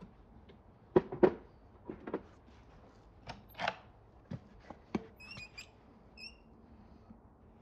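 Scattered sharp clicks and knocks of farrier's hand tools against a horse's shod hoof and its old steel shoe, loudest about a second in. A few short, high chirps come around the middle.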